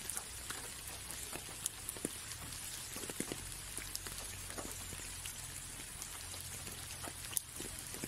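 Light rain falling on a window pane: a steady hiss with scattered single drops ticking irregularly, a few of them louder.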